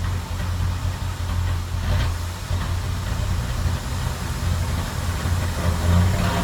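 A 2007 Ford Crown Victoria's 4.6-litre V8 running with a steady low drone. No brake squeal stands out.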